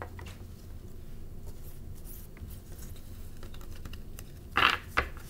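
Tarot cards being shuffled by hand: quiet card-handling clicks and rustles, then two sharp shuffling bursts near the end.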